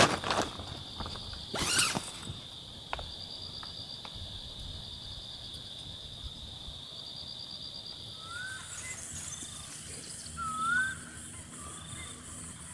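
Bush ambience: a steady high insect drone that gives way to a higher hissing chorus about eight seconds in, with two short upward-curling bird whistles near the end. A brief sharp rustle or knock about two seconds in is the loudest moment.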